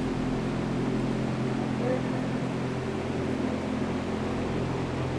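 A steady, low mechanical hum with an unchanging pitch.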